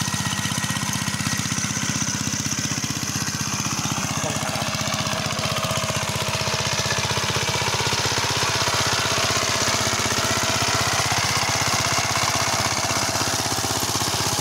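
Single-cylinder diesel engine of a walk-behind hand tractor running steadily under load as its cage wheels work through flooded paddy mud, with a fast, even beat of firing strokes.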